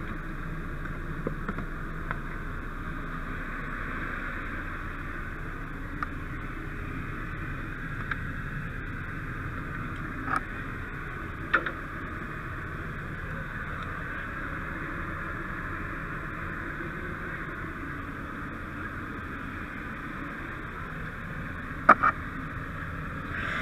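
Steady rushing noise over a low rumble, with a scattering of sharp knocks of gear bumping against the helmet camera or the truck's steel. The loudest knocks are a close pair near the end.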